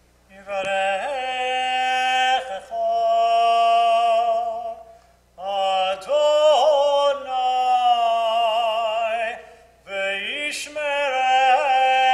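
A cantor's solo voice chanting a sung blessing in long, held notes with vibrato, in three phrases with short breaths about five and ten seconds in.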